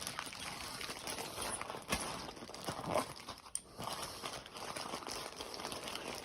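Faint handling noise of small toilet-repair parts: light crinkling with a few soft clicks about two, three and three and a half seconds in.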